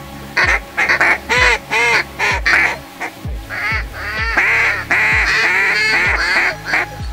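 Mallard ducks quacking in a rapid run of calls that gets busier and denser in the second half. Under it runs background music with a deep, falling drum hit about once a second.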